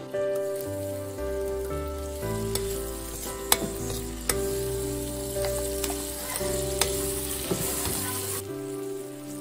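Tomato wedges and oyster meat frying in oil in a metal wok, sizzling steadily, while a perforated metal ladle stirs them and clinks against the wok now and then.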